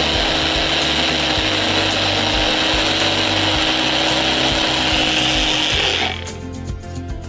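Personal bullet-style blender motor running steadily as it blends a green liquid, stopping about six seconds in.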